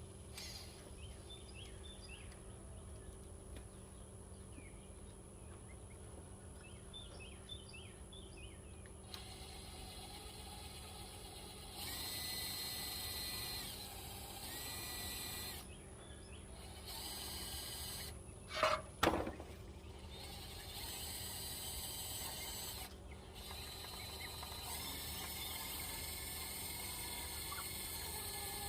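Cordless drill driving screws into wooden boards in several short runs of a second or two each, with pauses between. Faint bird chirps come before the drilling starts, and there is one sharp knock partway through.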